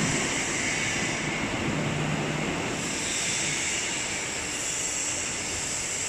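Steady machine noise from workshop machinery: an even hiss with a faint hum underneath and no distinct strikes or clanks.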